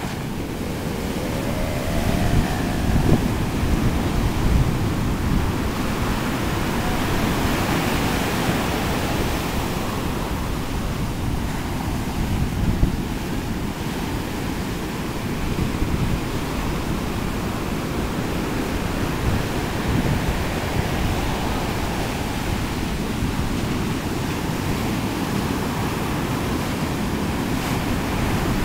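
Ocean surf breaking close to shore and whitewash rushing up the sand, a steady wash with swells of rumble as waves break, with wind buffeting the microphone.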